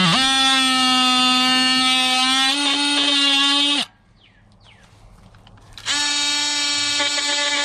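Dewalt DCS356 brushless oscillating multi-tool plunge-cutting into a 2x4. It makes a loud, steady buzz, and its pitch sags briefly near the start as the blade bites. It stops for about two seconds near the middle, then starts up again.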